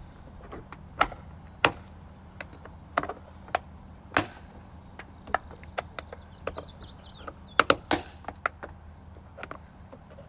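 Prying and knocking at a plastic mount piece of a vehicle's factory roof rack: a string of sharp, irregular clicks and taps, about ten in all, several of them in quick pairs.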